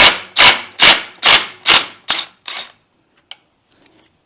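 A rapid series of about seven sharp metallic blows, roughly two a second, each ringing briefly, as the 19 mm clutch retaining bolt is worked loose. The blows stop a little past two seconds in, followed by one faint click.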